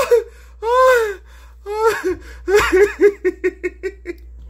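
A man laughing hard: a few long, high-pitched whooping cries, then a rapid run of short laughs that tails off a little before the end.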